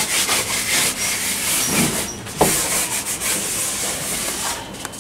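Wooden-framed canvases scraping and rubbing against one another as they are slid through a tightly packed rack, with a few knocks of frame against frame.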